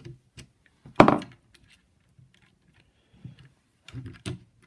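Tools and loose metal parts of a lopper's pivot, bolt and washer, handled on a workbench: one loud clunk about a second in, then light clicks and clinks.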